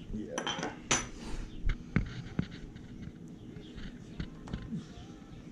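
Screwdriver and small metal parts clinking and tapping against a Honda Magna 750 carburetor bank and the wooden table as the choke rail is unscrewed. A few sharp, ringing clinks come in the first two and a half seconds, then lighter taps.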